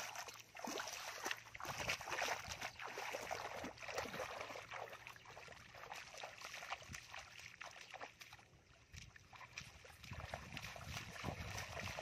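Bare feet wading through shallow muddy water, sloshing and splashing irregularly with each step. The splashing dies down a little past the middle, then grows louder again near the end.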